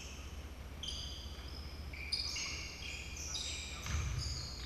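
Basketball shoes squeaking on a hardwood gym floor as players run and cut: a string of short, high squeaks, over a steady low hum. A few low thuds come near the end.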